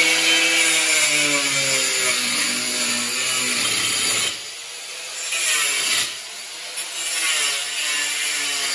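Handheld electric angle grinder cutting metal, a steady loud grind with the motor pitch sagging under load. The sound drops twice, about four and six seconds in, then picks up again.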